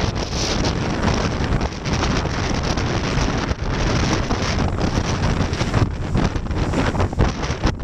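Strong wind buffeting the microphone on the deck of a two-masted schooner under sail, gusting unevenly, with water rushing and breaking along the heeled hull.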